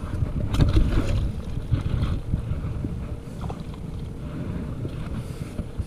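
Steady low rumble of wind and water on the microphone aboard a kayak, with a few light knocks in the first two seconds.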